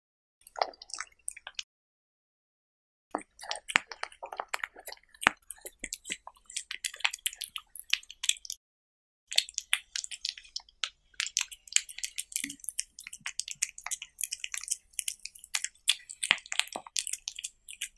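A cat eating raw meat strips, close-miked: quick wet chewing, smacking and licking clicks in bursts, broken by brief silent pauses about two seconds in and just past eight seconds in.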